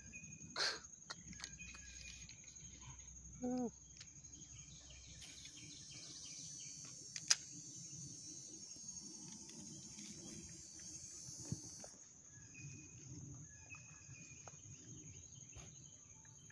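Quiet outdoor ambience: insects droning in a steady high pitch, swelling into a louder high buzz for several seconds in the middle, with a few faint bird chirps and a couple of brief knocks near the start.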